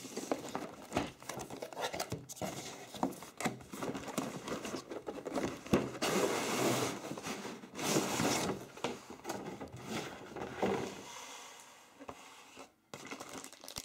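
Cardboard LEGO Duplo box being handled and opened: scrapes and taps of the box against the table, with two longer stretches of rustling around the middle as the lid is opened, then a quieter spell near the end.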